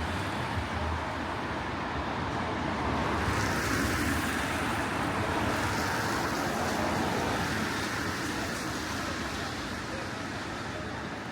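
A broad rushing noise of a train moving through the station, swelling about three seconds in and slowly easing off.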